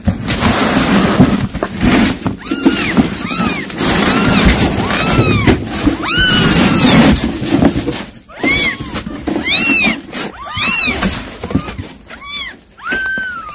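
Kittens mewing over and over in short, high, arching cries, with rustling of cardboard boxes during the first half.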